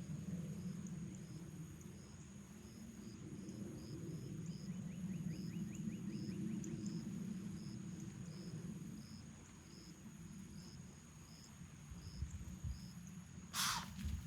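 Insects chirping steadily over a low hum, then near the end a single sharp, loud snort from a spooked whitetail doe, a short blast of air that is the deer's alarm call.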